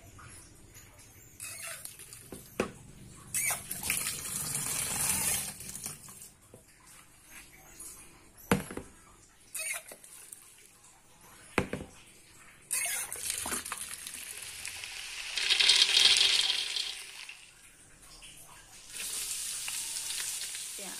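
Water running in a stainless steel kitchen sink in several spells as sliced ingredients are rinsed in plastic bowls, with a few sharp knocks. Near the end, a steady sizzle begins: oil frying in a wok.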